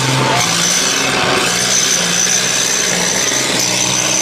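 Tracked armoured vehicles driving past at close range: a loud, steady engine drone with track noise, and a thin high whine running over it.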